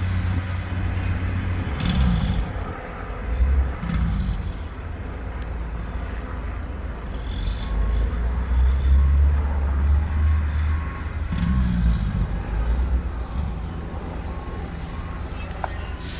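Heavy diesel fire-truck engines running steadily, the low engine note swelling between about eight and eleven seconds in, with short hissing bursts about two and four seconds in.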